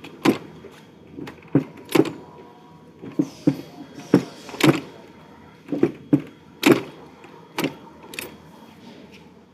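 Manual wire cold welding machine clacking as it is operated, its dies pressing copper wire ends together. About a dozen sharp metal clacks come at an uneven pace of one or two a second, often in close pairs.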